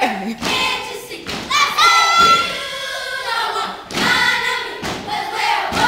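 Children's step team stepping: sharp stomps and slaps at intervals, mixed with children's voices chanting and calling out. From about a second and a half in, one long high-pitched call rings out.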